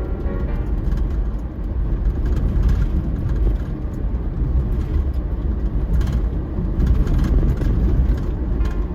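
Steady low rumble of a car driving on the road, a mix of tyre and engine noise.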